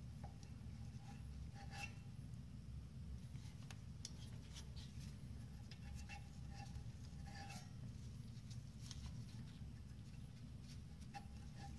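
Faint scraping and clicking of a thin metal tool worked around inside a brake caliper bracket's slide-pin bore, cleaning out dry debris, over a steady low hum.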